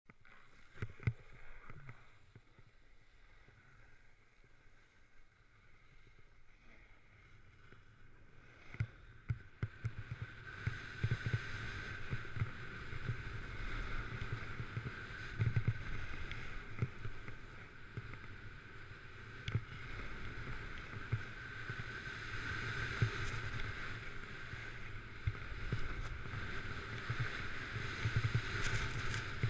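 Jones Hovercraft 152 snowboard carving on groomed snow: the edge scrapes and hisses over the snow while wind buffets the camera's microphone with low thumps. It is fairly quiet for the first several seconds, then louder and steadier from about ten seconds in, once the board is running down the slope.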